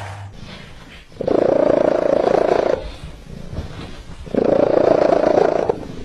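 A domestic cat purring loudly: two long purring stretches of about a second and a half each, with a quieter pause between them.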